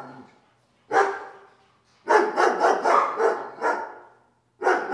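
Dogs barking in quick runs of short barks, in three bouts: a single bark about a second in, a longer burst in the middle, and another starting near the end, with short silent gaps between.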